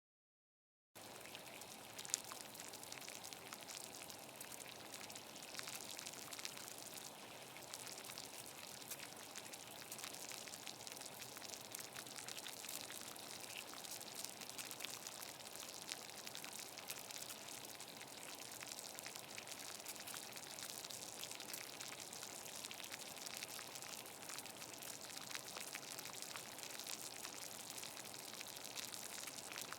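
Water boiling in a pot on a gas stove: a steady bubbling full of small pops, starting abruptly about a second in.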